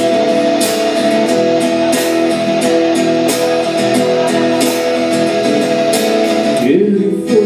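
Live band playing an instrumental passage on strummed acoustic guitar, electric guitar and bass guitar. A high note is held steadily until it stops about a second before the end, and the sound thins.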